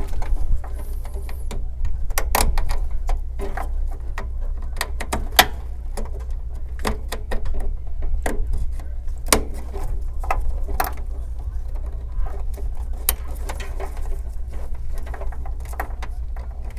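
Gloved hands handling SATA data cables and connectors, making scattered light clicks and rustles as the cables are routed and plugged into motherboard ports, over a steady low hum.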